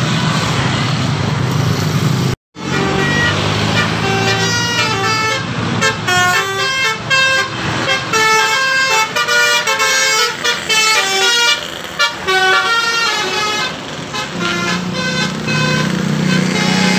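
Bus 'telolet' multi-tone air horn playing a quick tune of stepped notes over the bus engine and road noise. The sound cuts out for a moment about two and a half seconds in, and the tune gives way to the engine running near the end.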